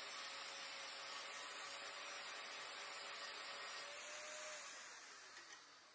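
Angle grinder with a flap disc grinding a small steel part, a steady hiss of grinding for about four seconds. The grinder then comes off the work and winds down, fading gradually.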